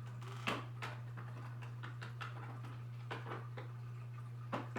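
Flat screwdriver clicking and scraping against the plastic battery cover of a baby toy as it is pried at: a few sharp clicks, the loudest about half a second in and another near the end, over a steady low hum.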